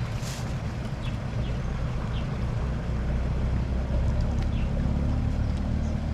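An engine runs steadily as a low drone, settling into an even hum about three seconds in, with a few faint short high chirps over it.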